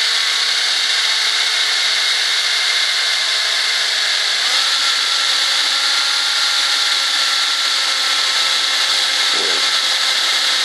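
Electric drill running steadily at speed, spinning a part chucked in it, while a hand tool rubs against the turning part to cut it at a marked spot.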